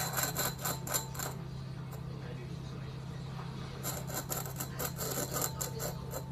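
Rapid light clicks and scrapes from a cat at a bowl on a stone countertop, in two spells: one at the start and another about four seconds in as it paws at the bowl. A steady low hum runs underneath.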